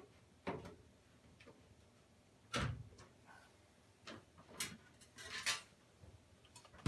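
Scattered clicks, knocks and short scrapes from working the rubber door-boot seal and its tight spring clamp onto the steel lip of a Maytag front-load washer's door opening. The loudest is a dull knock about two and a half seconds in, with a quick run of scrapes and clicks a little past the middle.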